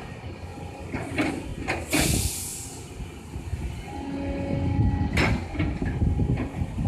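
Caterpillar 320C excavator working: its diesel engine running under hydraulic load, with a held whine about four seconds in, and several sharp metallic knocks from the bucket and linkage. A brief hiss comes about two seconds in.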